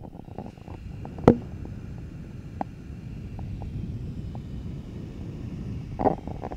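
2010 21.5-inch iMac's internal fans running at maximum speed, set there by smcFanControl to cool a hot CPU. It is a steady, pretty loud rush of air with a faint high whine, heard close to the vent. There is a sharp knock about a second in and a few light clicks after it.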